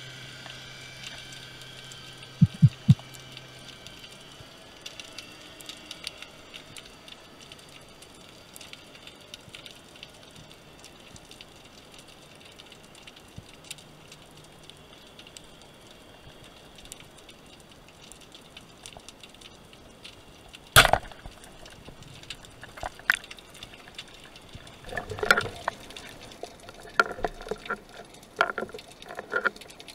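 Underwater sound through a diving camera: a steady low water hiss with faint ticking, and three quick low knocks about three seconds in. About two-thirds of the way through, a single sharp crack as the band-powered speargun fires, followed a few seconds later by a spell of knocking and splashy clatter as the speared sea bass is handled near the surface.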